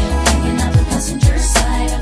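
R&B music beat with a heavy bass, bass kicks that fall in pitch, and crisp percussion hits, without vocals.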